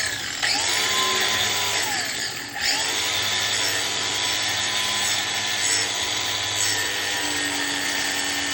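Angle grinder with a grinding disc cutting through old battery cable terminals: a loud, steady grinding whine. The motor's pitch sags and recovers twice in the first few seconds as the disc bites into the metal.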